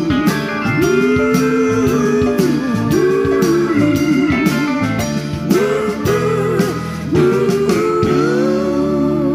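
Live band playing: a lead guitar with gliding, bending notes over drums and bass.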